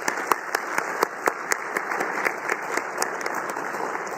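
A crowd applauding: many people clapping at once, steady throughout.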